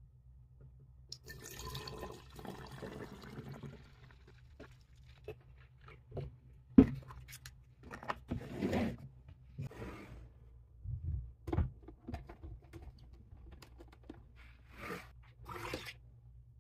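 Orange juice poured from a plastic jug into a plastic Sodastream bottle for a few seconds, followed by a series of knocks and clatter as the bottle is handled and fitted into the Sodastream machine, with one sharp knock, the loudest sound, a little before the middle.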